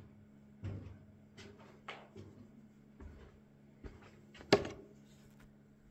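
Scattered light knocks and clicks in a small room, the sharpest one about four and a half seconds in, over a faint steady low hum.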